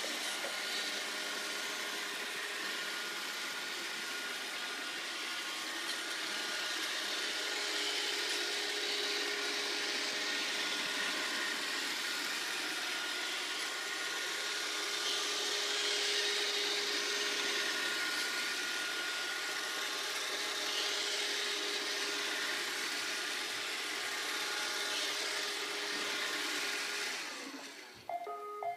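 Robot vacuum cleaner running: a steady whir of its motor and brushes with a faint held hum, which stops near the end.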